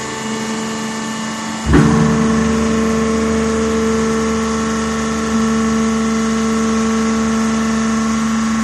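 Cast iron crusher running with a steady pitched mechanical hum. A sudden loud clunk comes just under two seconds in, after which a deeper rumble joins the hum and carries on.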